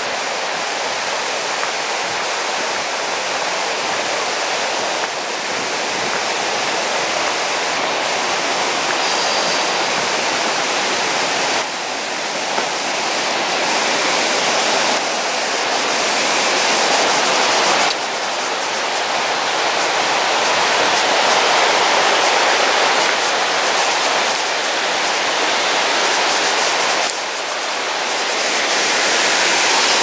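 East Lyn River rushing and tumbling over boulders and rapids: a steady, loud roar of white water, shifting suddenly in loudness a few times.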